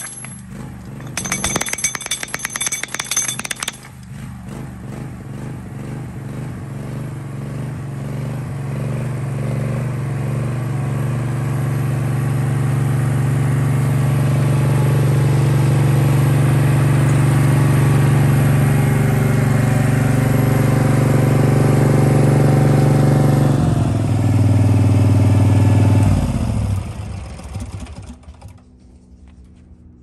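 Stanley BR37 hydraulic breaker hammering rapidly on a wooden block for the first few seconds, with a short break about half a second in. Then the engine-driven hydraulic power unit runs steadily, growing louder, changes pitch near the end and winds down to a stop.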